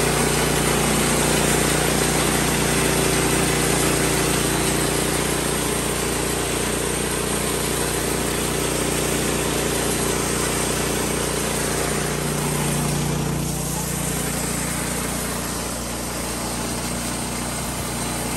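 Engine of a portable bandsaw sawmill running steadily while the band blade cuts along a weathered timber beam.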